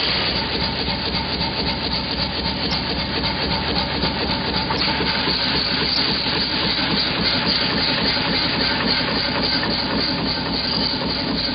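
Pneumatic forging hammer running continuously, its ram pounding a metal block on the lower die in rapid, even blows.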